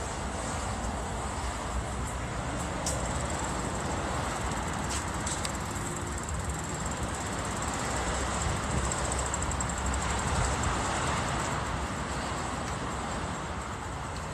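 Steady rumble of passing traffic, swelling about eight seconds in and easing near the end.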